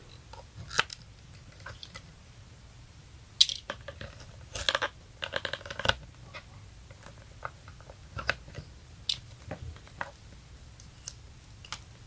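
Light handling noise: scattered small clicks and rustles as multimeter test leads and their clips are handled on a run capacitor's terminals. There are a dozen or so faint ticks, a few a second apart.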